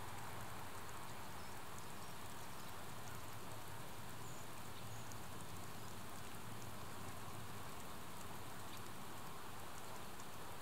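Faint, steady hiss of a quiet outdoor morning ambience, with a few tiny high ticks scattered through it.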